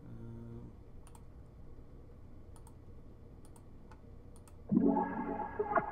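Light, scattered computer clicks while loop files are selected, with a brief fragment of a loop right at the start; about five seconds in, a dark trap melody loop from the sample kit starts playing, much louder than the clicks.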